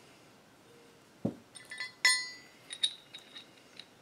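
Steel puller hardware being handled on a workbench: a dull knock about a second in, then a loud ringing metal clink, followed by several lighter clinks of the nut, washers and threaded rod knocking together.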